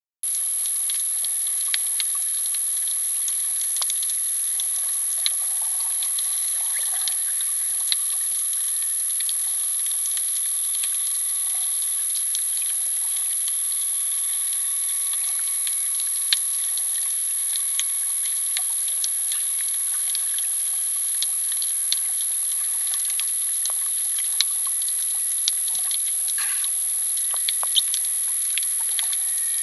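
Underwater ambience picked up by a camera below the sea surface: a steady high-pitched hiss with many irregular sharp clicks and crackles scattered throughout.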